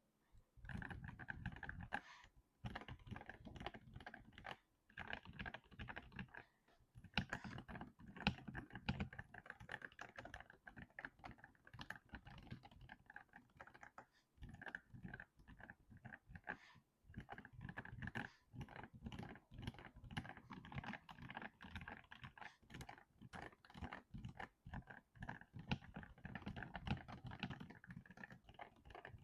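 Typing on a mechanical keyboard fitted with PBT keycaps: a fast, continuous run of keystroke clicks, starting about half a second in, with a few brief pauses.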